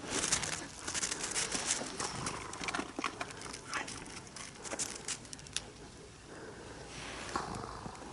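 Dogs moving about close by: a busy run of rustling and clicking noises that thins out after about five seconds.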